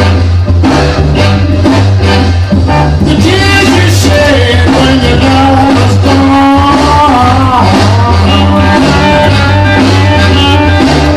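A rock and roll record playing, with a driving bass line and drums. A lead melody line comes in about three seconds in.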